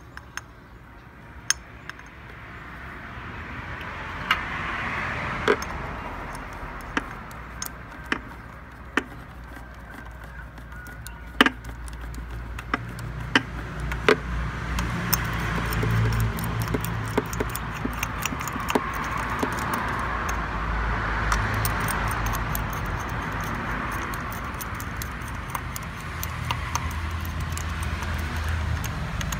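1999 Kia Sportage engine running in the open engine bay: a low hum that builds about twelve seconds in, and a rushing sound that swells and fades several times. Sharp metallic clicks are scattered through.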